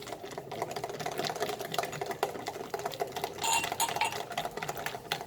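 Hand whisk beating a cake batter of eggs, sugar, oil and milk in a bowl: fast, even clicking of the wires against the bowl, with a brief ringing clink about three and a half seconds in.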